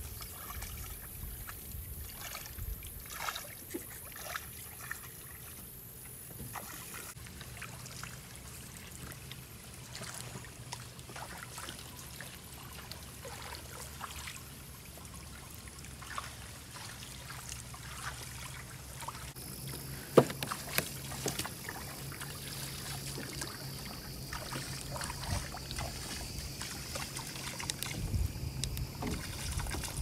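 Water splashing and trickling at a stream, with scattered clicks and knocks of something being handled; one sharp knock about twenty seconds in.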